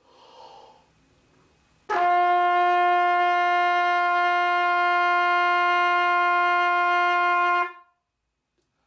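A breath is drawn in, then about two seconds in a trumpet sounds a single long, steady note, held for about six seconds and stopped cleanly.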